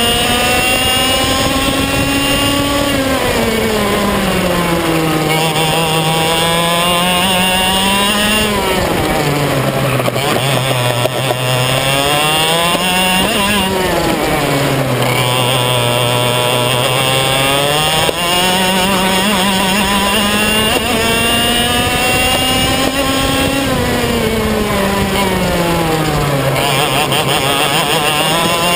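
125cc two-stroke TaG racing kart engine heard close up from the kart itself, revving up along the straights and dropping in pitch as the kart slows for corners, rising and falling several times.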